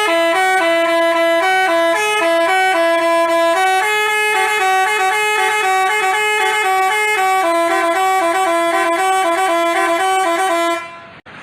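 Telolet basuri musical bus horn playing a melody of stepped, held notes, several pitches sounding together, loud and continuous until it cuts off near the end.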